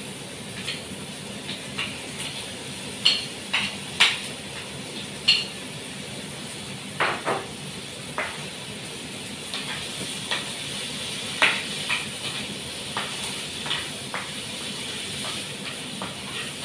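Chicken frying in a nonstick frying pan with a steady sizzling hiss, while a wooden spatula knocks and scrapes against the pan about a dozen times as the pieces are stirred.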